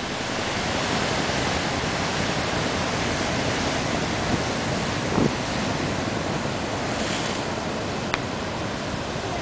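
Heavy surf breaking and rushing ashore in a steady, continuous wash of whitewater noise.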